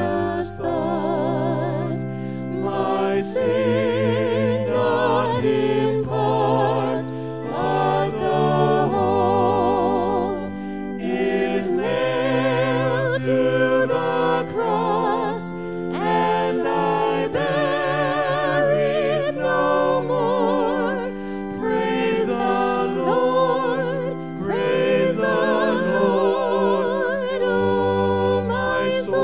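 Worship music: voices singing held notes with vibrato over sustained instrumental accompaniment.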